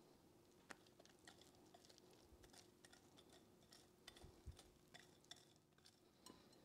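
Faint, irregular clicks and taps of a wire whisk against a glass mixing bowl as dry chocolate cake mix is stirred into the wet batter.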